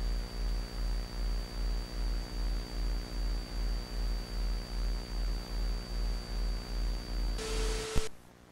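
Loud low electrical hum pulsing about three times a second, with a thin steady high whine and hiss, the drone of an emergency-alert broadcast screen. Near the end a burst of static and a mid tone come in, then a sharp click and the signal cuts off.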